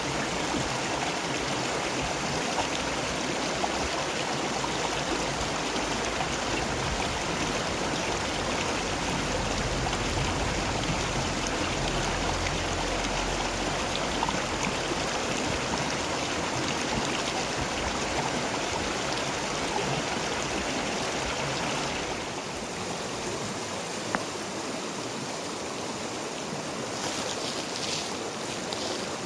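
River water flowing and rushing steadily. It gets a little quieter about three quarters of the way through, with a single sharp click shortly after.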